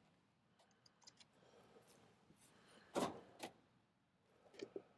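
Near silence, broken about three seconds in by two sharp clacks half a second apart, then two fainter ones near the end: tools being handled in an open toolbox drawer of sockets.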